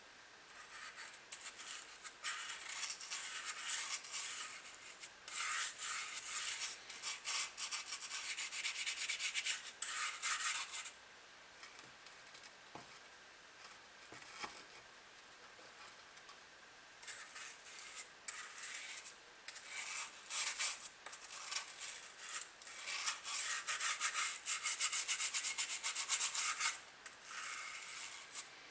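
Quick, hissy rubbing strokes on the stained wooden hull of a model ship as tung oil finish is worked into the wood. They come in two long spells with a quieter pause in the middle.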